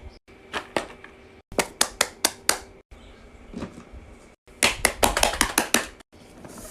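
Quick runs of sharp clicks and taps from fidget toys being handled, several a second, in short segments that cut off abruptly to silence.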